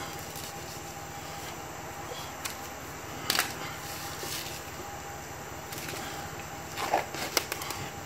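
Light clicks and rustles of hands pressing butyl tape around the shore power cord opening in the camper's siding, a few times, most of them near the end, over a steady background hum.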